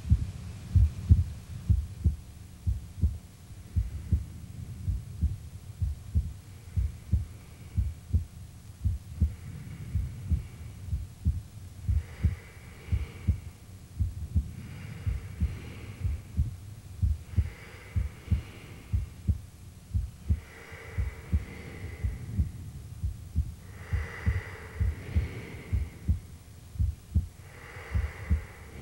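Intro soundtrack: a heavy, regular low thump like a heartbeat, about two beats a second, with a faint swelling tone every two to three seconds over it.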